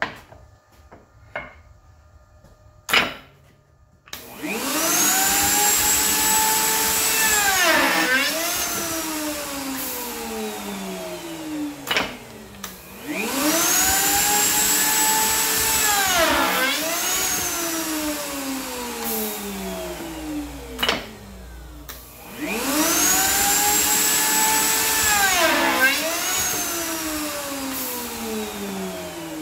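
Bosch router in a pneumatic face-frame notching jig running three cutting cycles: the motor spins up with a rising whine, runs at speed, dips sharply in pitch once as it cuts, then winds down with a falling whine. Short sharp knocks, the pneumatic clamps and router slide, come before the first cycle and between the cycles.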